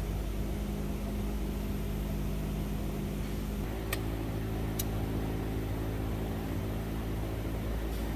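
Steady low machine hum whose pitch shifts about halfway through, with two short sharp clicks a second apart.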